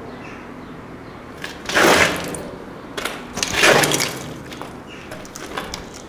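Two brief scuffing, crunching noises about two seconds apart, footsteps on a grit-strewn wooden floor.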